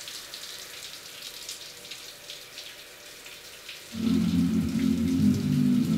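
Shower water spraying and pattering with scattered drips. About four seconds in, music with low held notes comes in and is the loudest thing.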